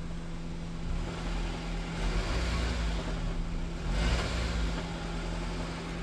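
Honda Civic four-cylinder engine idling steadily, with a rod knock that is barely audible at idle.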